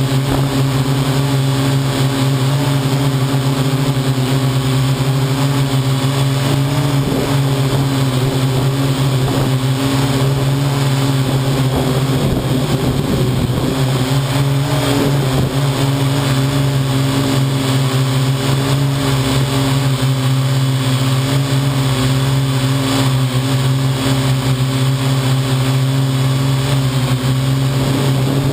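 Parrot AR.Drone quadcopter's four electric motors and propellers running in flight, a steady hum heard from the drone itself. Its pitch wavers briefly around the middle as the motor speeds change.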